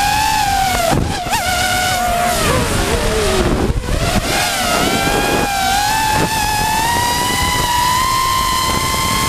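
FPV quadcopter's electric motors and propellers whining, heard from the onboard camera with wind noise under it. About a second in the pitch dips, then slides well down over the next few seconds and climbs back up as the throttle is cut and punched through a power loop, then holds steady and slightly higher.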